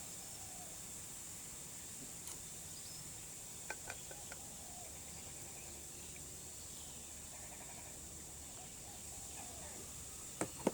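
Faint, steady fizzing hiss of baking soda and vinegar reacting in a cut lime, with a few light clicks about four seconds in and again near the end.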